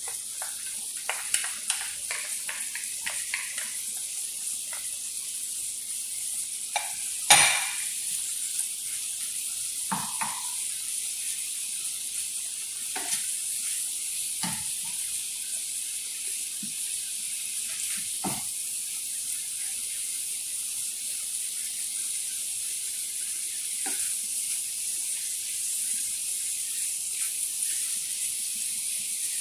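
Shrimp, butter and minced garlic sizzling steadily in a nonstick frying pan on low heat, with a wooden spatula stirring and knocking against the pan now and then; the loudest knock comes about seven seconds in.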